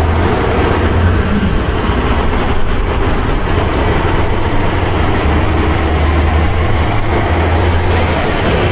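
Heavy truck engine running steadily, a constant low hum under a rattling haze.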